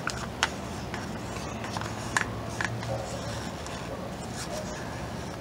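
A plastic party cup handled over the canvas while the last of the paint is emptied from it: a few sharp clicks and light rubbing, with a steady low hum behind.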